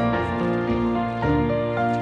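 Background music: a slow, tender tune of held notes and chords that change about every half second.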